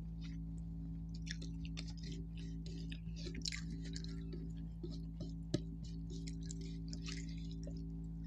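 Close-miked mouth sounds of a person eating rice and fish curry by hand: irregular soft, wet chewing smacks and lip clicks, with one sharper click about five and a half seconds in, over a steady low hum.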